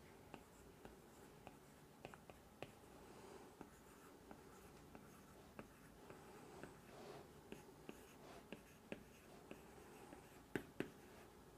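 Faint tapping and scratching of an Apple Pencil tip writing on an iPad's glass screen, a small click as each stroke begins, with two sharper taps near the end.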